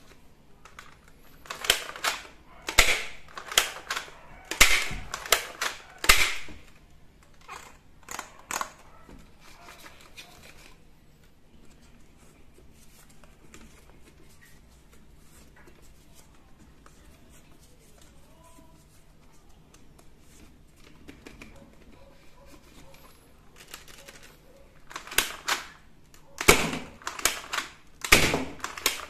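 Hard plastic toy gun parts clicking and knocking as they are handled, in two clusters of sharp clicks with a quiet stretch in the middle.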